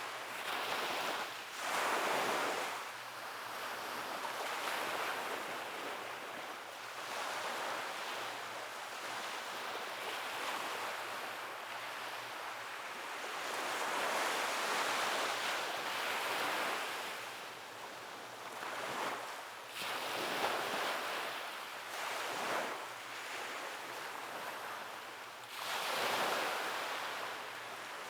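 Ocean waves washing onto a beach: a continuous hiss of surf that swells louder each time a wave breaks, at irregular intervals several seconds apart.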